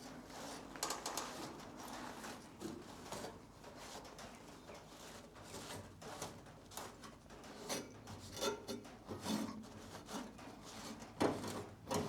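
A rag rubbing and wiping over a bare steel car body panel in irregular strokes, cleaning it down with wax and grease remover, with a few light knocks and a sharper knock near the end.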